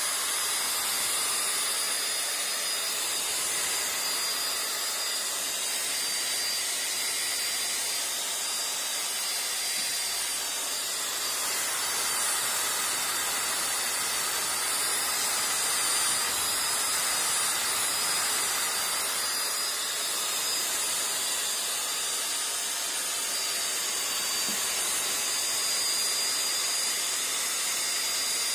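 Electric drill spinning a buffing pad, running steadily with a high motor whine over a rushing hiss, polishing a headlight lens with toothpaste.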